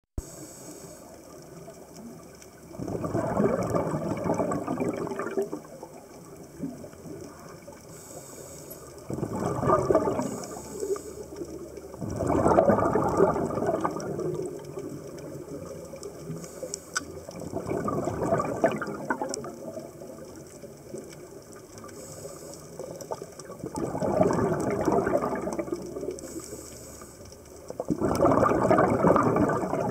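Scuba diver's exhaled breath bubbling out of the regulator in six rushing bursts, each about two seconds long and a few seconds apart, with a quieter steady hiss between them.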